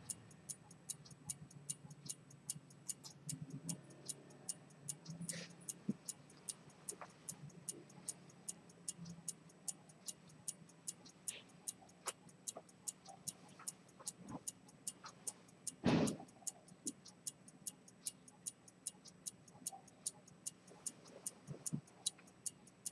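Pivoted-detent chronometer escapement of a key-wound fusee pocket watch ticking evenly, about two and a half crisp ticks a second. One louder knock about two-thirds of the way through.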